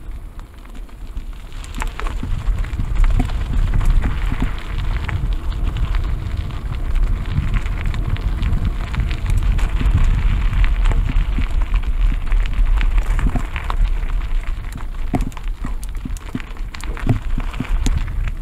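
Trek Roscoe 6 mountain bike tyres crunching and crackling over a gravel trail, with scattered sharp clicks and rattles from stones and the bike, over a low rumble of wind on the microphone.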